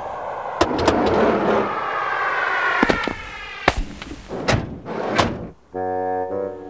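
A quick run of sharp smacks as snowballs hit, several in a row, over a whooshing sound that falls slowly in pitch. Near the end a held brass chord comes in and shifts once.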